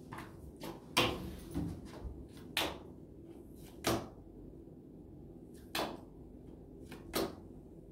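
Playing cards being flipped and slapped down onto a tabletop one after another in a card game, a string of short, sharp taps about every one to two seconds.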